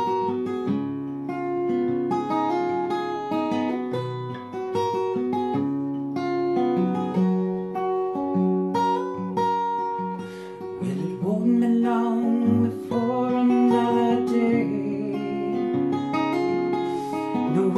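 Acoustic guitar fingerpicked, a steady run of single notes and chords ringing on through an instrumental passage between sung verses of a lullaby.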